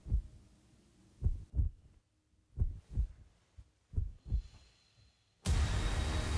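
Slow heartbeat sound effect: low double thumps, lub-dub, repeating about every one and a third seconds. About five and a half seconds in, a loud, dense sound, likely music, cuts in suddenly and takes over.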